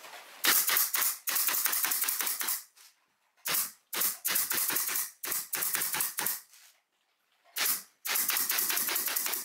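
Pneumatic nailer driving nails into plywood panels, firing in quick runs of rapid sharp shots with short pauses between the runs.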